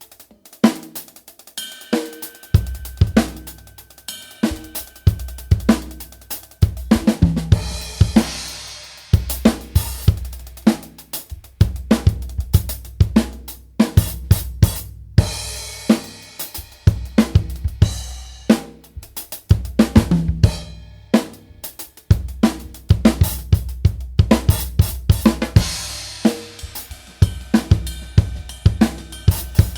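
Drum kit played with Arborea cymbals: a steady groove of bass drum, snare and hi-hat, with splashes of crash cymbal several times.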